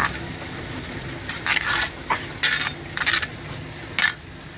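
Dishes and utensils clinking and clattering in a handful of irregular knocks, over a steady background hum.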